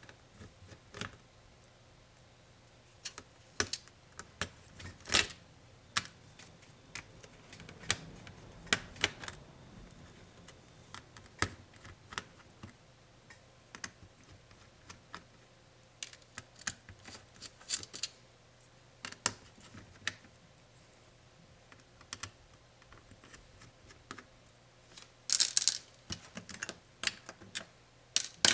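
Irregular small clicks and taps of hand tools and plastic and metal laptop parts being handled during the disassembly of a Lenovo ThinkPad Yoga 260, with a louder flurry of clicks near the end.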